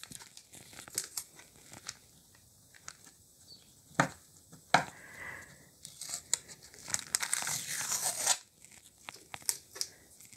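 Masking tape being peeled off a clear plastic wrapper and the plastic and paper envelopes crinkling under the hands, in short bursts with a few sharp snaps and a longer stretch of crinkling past the middle.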